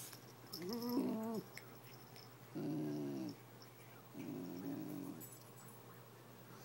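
A basenji 'talking': three drawn-out, moaning growl-like vocalizations of about a second each, the first gliding up and back down in pitch.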